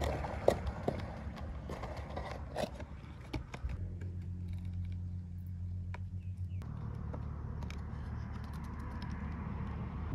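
Faint scattered clicks and taps of a small plastic toy tractor trolley being handled, tipped and set down, over a low rumble. A steadier low hum sits underneath for about three seconds in the middle.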